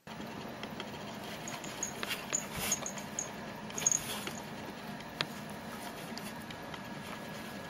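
A cat's paws scraping and tapping against a cardboard box as it swipes through a hole in it: a few short scratches and knocks over a steady hiss.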